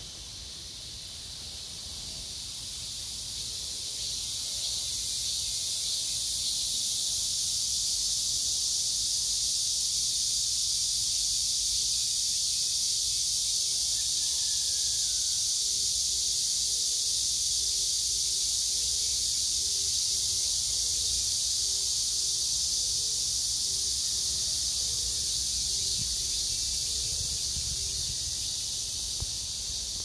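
Cicadas singing in the trees: a dense, continuous high-pitched chorus that swells over the first few seconds and then holds steady.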